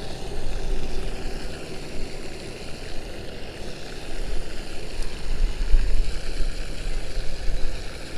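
Wind rumbling on the camera microphone, an uneven low rumble that gusts stronger about five seconds in.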